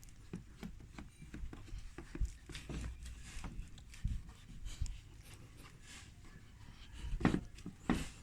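Irregular soft rubbing and tapping handling noises, with two louder scuffs near the end.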